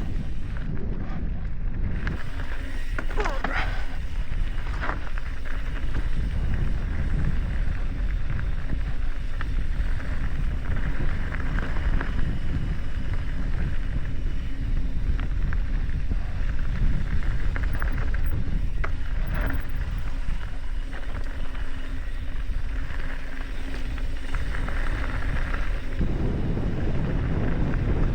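Wind buffeting the camera microphone over the rumble of mountain bike tyres rolling down a dirt and rock trail, with a few short rattles from the bike over bumps.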